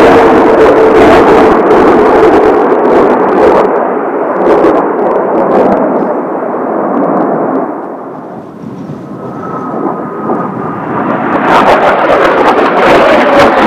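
Kawasaki T-4 jet trainers flying past with loud turbofan noise, its tone falling slightly as they go by. The noise fades about 8 seconds in, leaving a faint high whine, then builds loud again as another pass approaches near the end.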